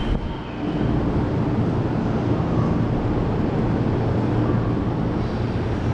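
Steady low rumble of a busy railway station, with a faint hum underneath; it starts abruptly.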